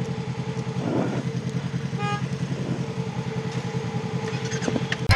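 Honda CRF250L's single-cylinder engine idling with an even pulse. A short beep sounds about two seconds in.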